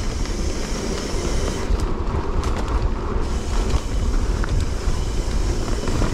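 Mountain bike riding over a dirt trail: a steady rumble of tyres and rattling of the bike, with wind buffeting the microphone.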